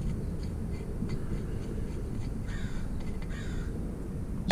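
Two short, harsh bird calls about a second apart, near the middle, over a few faint clicks.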